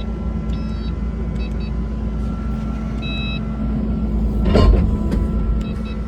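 Kubota SVL75-2 tracked skid steer's diesel engine running steadily, heard from inside the cab. Short, high electronic beeps sound every second or two, and a louder, rougher surge comes about four and a half seconds in.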